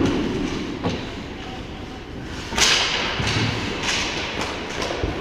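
Ice hockey play: skate blades scraping the ice and sticks and puck clacking, with one loud sharp crack about two and a half seconds in that echoes briefly.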